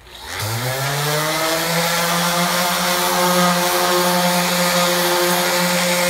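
Corded DeWalt random orbital sander starting up, its motor winding up in pitch for about a second and a half, then running steadily as its 60-grit pad sands a skim coat of Bondo body filler.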